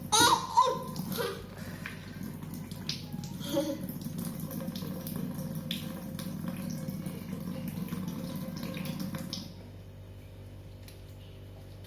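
Water running from a tap into a sink during handwashing, a steady rush that stops about nine and a half seconds in, when the tap is turned off.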